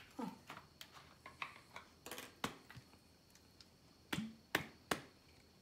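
Water splashing and dripping into a plastic tub of bath water as a wet puppy is washed: a string of irregular sharp splashes and drips, the strongest about two and a half seconds in and again after four seconds.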